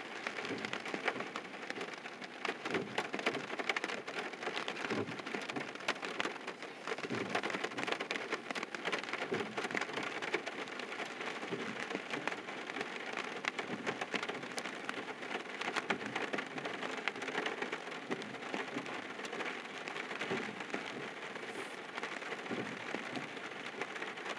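Steady rain falling on a car, a dense patter of drops heard from inside the cabin.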